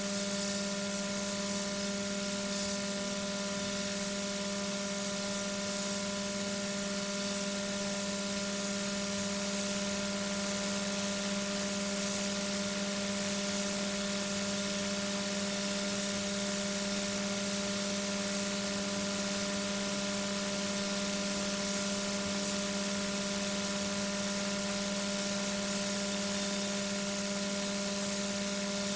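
Steady electrical hum with several fixed tones over a constant hiss, unchanging throughout: noise from the nest-box webcam's audio feed.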